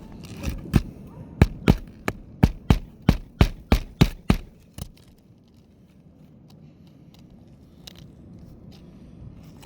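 Hammer driving roofing nails into a new asphalt shingle: about a dozen quick, sharp strikes over some four seconds, then they stop.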